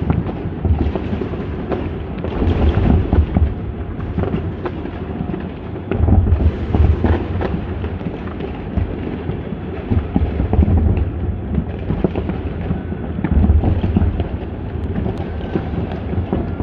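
Fireworks going off in a continuous barrage: deep rolling booms that swell and ease every few seconds, with many sharp crackles on top.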